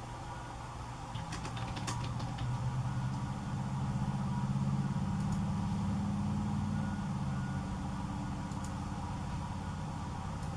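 Low, steady hum of a motor vehicle's engine, growing louder over the first few seconds, loudest around four to six seconds in, then slowly easing off. A few short sharp clicks come between one and two and a half seconds in, and again near the end.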